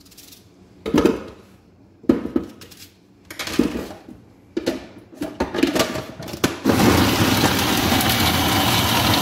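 A series of knocks and clatter as peeled onions go into a plastic food processor bowl. Then, about six and a half seconds in, the food processor's motor starts and runs steadily, chopping the onions.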